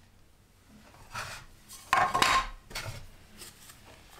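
Kitchen handling clatter: a metal spoon and a plastic butter dish knocking and rubbing as the dish is opened and picked up. There are a few short knocks, the loudest about two seconds in with a brief ringing clink.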